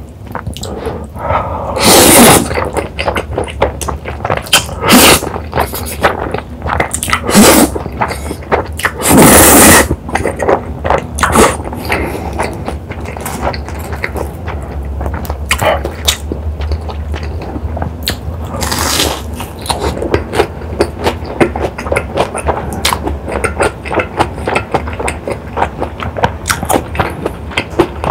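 Close-miked eating of spicy stir-fried ramen noodles: several loud slurps of noodles in the first ten seconds and another near the middle, with chewing full of small wet smacks and crunches in between.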